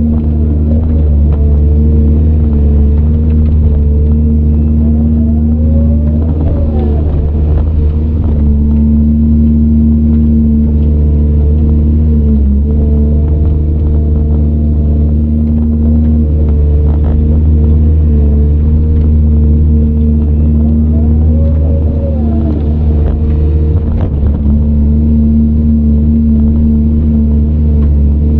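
CAT 395 excavator's diesel engine running steadily under working load, heard from inside the cab, with a few brief rising-and-falling whines as the machine works.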